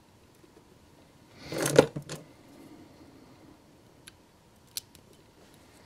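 Cutters snipping through double-sided tape: a short crunching squeeze ending in a sharp snip, followed by a lighter click, then a couple of faint ticks.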